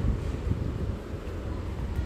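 Outdoor street ambience: a low, fluttering rumble of wind buffeting the microphone over the hum of street traffic.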